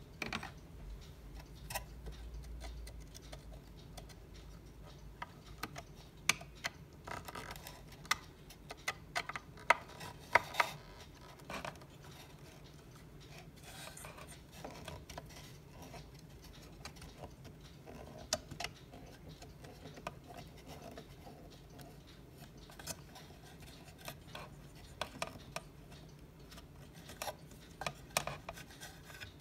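A screwdriver working screws out of a cuckoo clock's music box plate inside its wooden case: scattered small clicks and scrapes of metal on screw heads and wood, with a cluster of sharper clicks near the middle.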